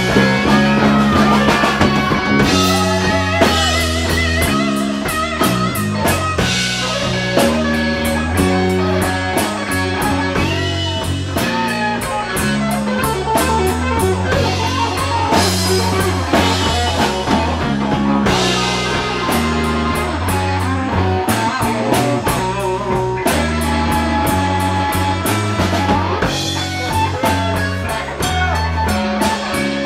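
Blues-rock band playing an instrumental break in a slow blues: electric guitar lead with wavering, bent notes over bass and drum kit.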